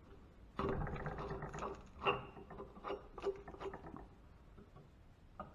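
Rusty metal caps on an old water pump's top plate being twisted and worked by hand: a run of gritty scraping with sharp clicks of corroded metal, starting about half a second in and dying away after about four seconds.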